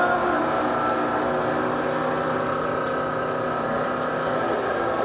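Radio-controlled model bulldozer running: a steady mechanical hum with engine-like tones.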